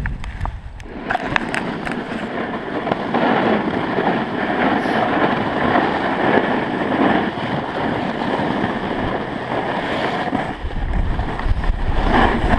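Snowboard sliding and scraping down crusty, packed snow: a steady rough hiss that swells a few seconds in. A few sharp clicks come in the first second or so, and low wind rumble on the microphone rises near the end.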